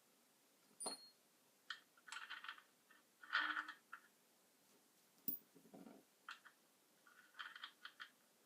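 Handling noises from small work: scattered clicks and short scraping rustles, with a sharp click about a second in and a low knock a little past halfway.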